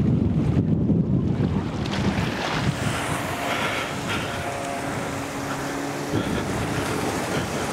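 Wind buffeting the microphone over surf washing against the rocks, heaviest in the first couple of seconds, with a small motorboat's engine running past offshore.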